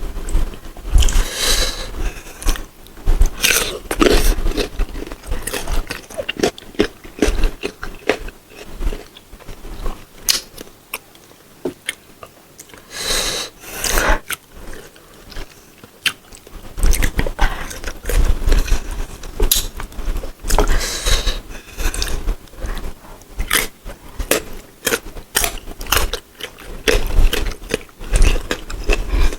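Crisp biting and chewing of raw green mango, with many sharp crunches throughout and a quieter stretch of chewing in the middle.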